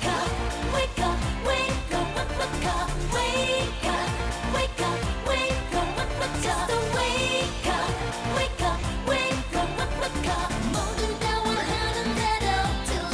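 K-pop dance-pop track with a steady, heavy bass beat and a woman singing.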